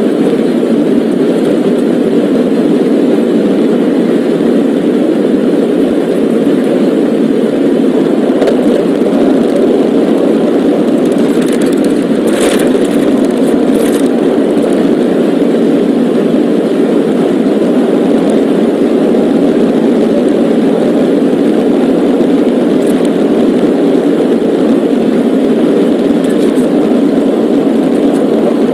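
Steady car engine and road noise from a vehicle driving at speed, unchanging throughout, with a couple of brief sharp clicks about halfway through.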